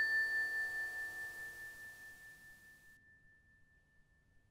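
A single bell-like chime note, the closing note of an outro jingle, ringing at one steady pitch and fading away over about two and a half seconds.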